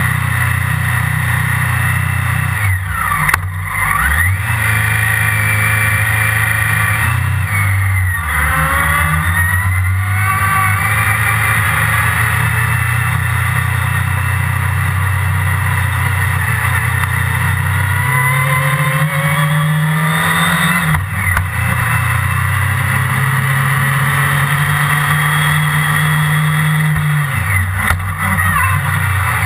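Onboard sound of a Formula Predator's single-seater's 600cc motorcycle-derived engine driven hard on track. The revs rise and drop back several times as it accelerates, shifts and lifts off for corners.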